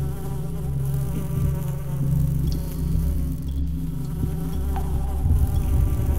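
Dark horror ambience soundscape: a low, steady drone of layered held tones, with a few faint ticks. A deeper rumble swells near the end.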